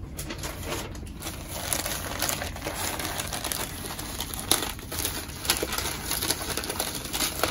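Packing paper crinkling and rustling as hands unwrap a paper-wrapped bundle, with a few sharper crackles along the way.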